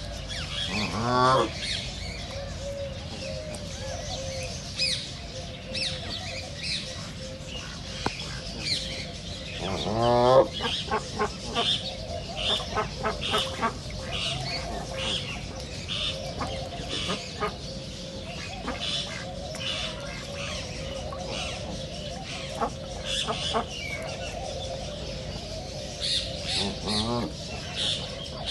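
Ducks calling outdoors, with three loud, drawn-out calls about a second long: near the start, about ten seconds in, and near the end. Between them runs a chatter of shorter repeated calls, with small birds chirping throughout.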